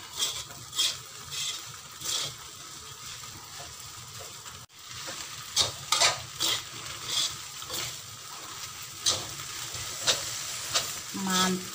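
Glass noodles sizzling as they are stir-fried in a metal wok, with the metal spatula scraping and knocking against the pan at irregular moments.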